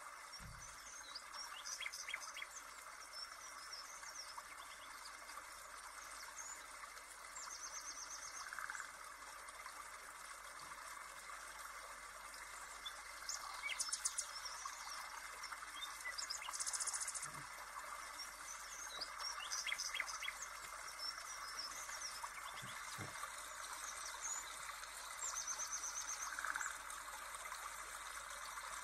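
Birds chirping, with short calls and quick trills repeating on and off, over a steady hum of insects.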